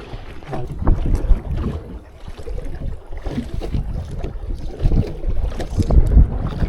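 Strong wind buffeting the microphone in uneven gusts, over water moving against a small boat.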